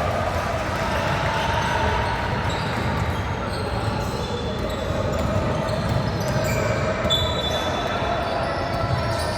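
Basketball game on an indoor court: the ball bouncing, short high sneaker squeaks, and players' voices.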